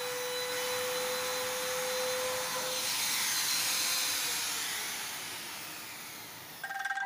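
Electric trim router running with no load after being lifted out of the groove, a steady whine that then fades gradually as the motor winds down. Music starts just before the end.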